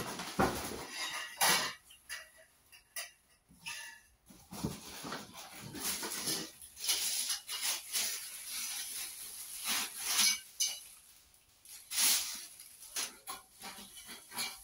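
Metal tubes of a clothes rack clinking and rattling against each other as they are picked up and laid down in a pile, with crinkling of the plastic wrap around some of them. The clatters come at irregular moments, loudest near the start and again a little after the middle.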